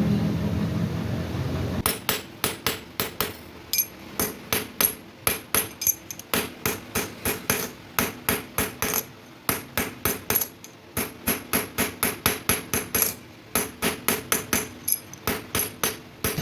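Hammer striking metal in quick repeated blows, about four a second with a few brief pauses, each blow ringing sharply. It follows a steady machine hum that fades over the first couple of seconds.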